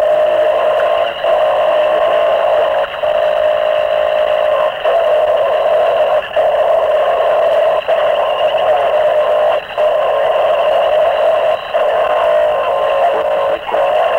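Harsh noise recording from a home-made cassette demo: a loud, dense wall of distorted midrange noise, cut by brief gaps about every one and a half to two seconds.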